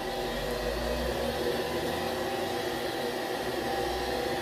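Draft inducer motors of two twinned gas furnaces running with a steady hum. They are purging the flue at the start of a heating cycle, before the burners light.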